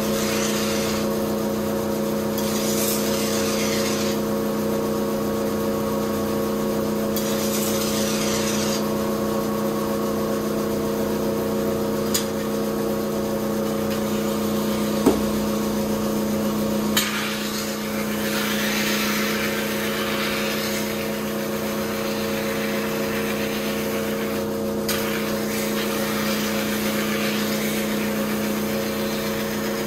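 A kitchen knife being ground on a motor-driven rotating whetstone. The wheel hums steadily, and several hissing grinding passes of the blade against the stone last a few seconds each, the longest in the second half. A single knock comes about halfway.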